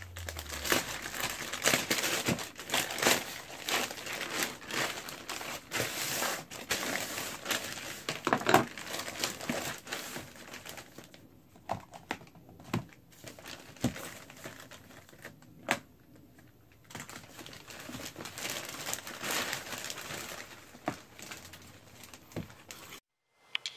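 Plastic poly mailer bag being torn open and crumpled by hand, with dense crinkling and tearing. A quieter stretch midway holds a few sharp knocks, and the crinkling resumes after it.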